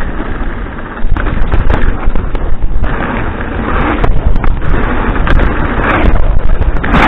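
Loud, distorted rumble and clatter of a bike being ridden over rough ground, with many scattered knocks. It picks up about a second in and grows louder toward the end.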